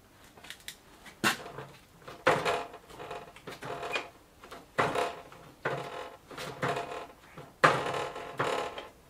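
Front drum brake of an old touring bicycle creaking and squealing in a run of about seven short groans as the brake is applied.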